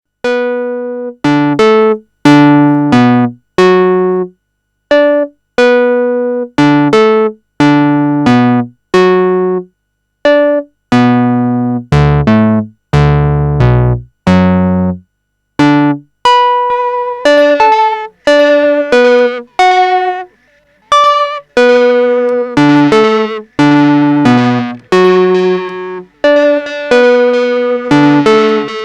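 Roland Juno-6 analogue synthesizer playing short, decaying chords through a Soviet 'Echo' tape delay being tested after repair. In the first half the chords stand apart with gaps between them; from about halfway on the notes come faster and run into one another.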